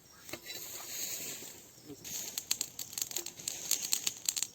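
Campfire crackling, with a quick run of sharp pops and snaps in the second half, as freshly added wood catches.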